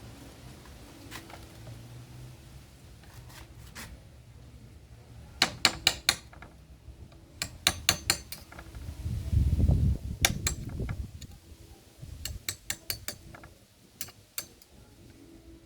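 Sharp clicks and clinks of small hard objects being handled, coming in quick clusters of several at a time, with a low rubbing rumble a little past the middle.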